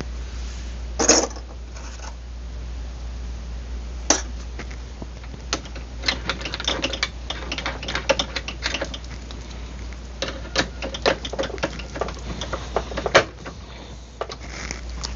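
Irregular run of sharp clicks and taps from small metal parts and tools being handled at a workbench, sparse at first and denser from about six seconds in, over a steady low hum.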